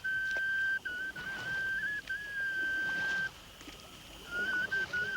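A high whistled tone holding one pitch with brief small steps up and down, breaking off about three seconds in and resuming a second later.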